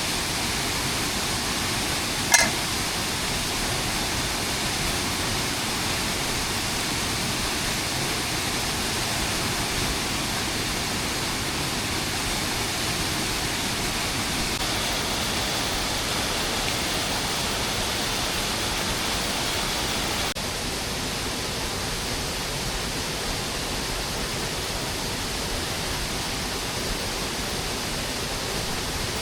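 Steady hiss of heavy rain, even and unbroken, with a single sharp crack about two seconds in. The rain drops slightly in level about twenty seconds in.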